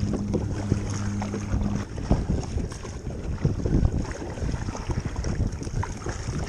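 Wind buffeting the microphone and choppy waves splashing around a kayak, with irregular low thumps and rushes. A steady low hum stops about two seconds in.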